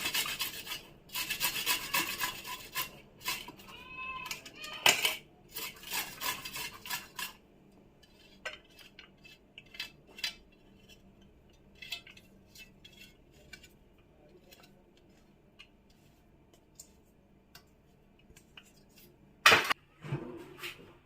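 Raw turmeric root grated on a hand grater: quick rasping strokes for about seven seconds, then scattered light clicks and clinks, with one louder clink near the end.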